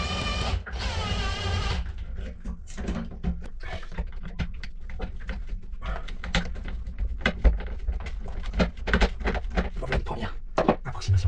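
A drawn-out pitched sound lasting about two seconds, then irregular light clicks, taps and scrapes of a screwdriver and metal parts as the threaded-rod linkage and arm of a tiller rudder angle sensor are adjusted.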